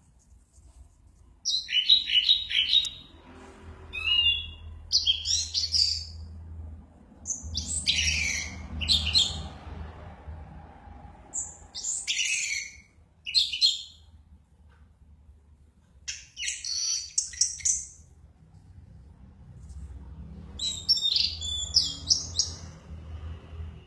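Orange-headed thrush singing in a run of short, varied, high phrases, each a second or two long, separated by brief pauses. Its outpouring is the intense singing state that bird keepers call 'mabuk'.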